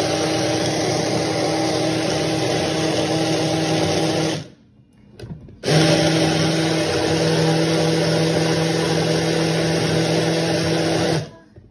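Personal cup blender's motor running steadily as it blends soaked sea moss with water into gel. It runs twice, each time for about five seconds, stopping briefly in between and cutting off again near the end.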